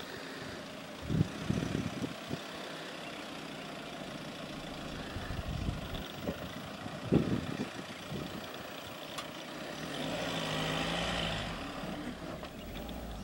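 Mahindra Alturas G4's 2.2-litre turbo-diesel engine working at low speed as the SUV crawls over dirt mounds, with a few low thumps. The engine note rises and swells for a couple of seconds near the end.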